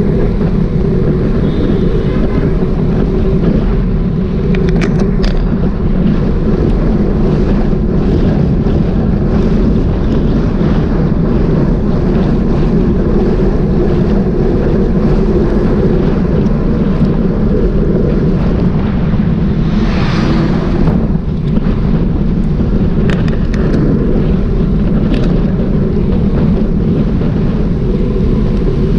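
Motorcycle engine running steadily at cruising speed, with wind buffeting the microphone. A brief rush of louder hiss comes about twenty seconds in.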